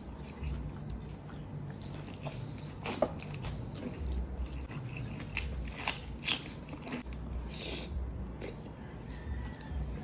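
Close-up sounds of eating: biting and chewing a braised chicken drumstick, then a crisp cucumber stick, with many short sharp mouth clicks throughout.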